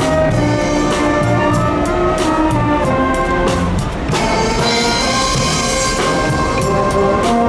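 School brass band playing a lively piece: brass over sousaphone bass, with drum and cymbal strikes keeping the beat.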